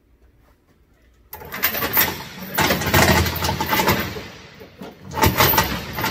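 Heavy steel tie-down chain clanking and rattling as it is pulled and handled. It starts about a second in and carries on as a dense, uneven run of metal clinks and knocks.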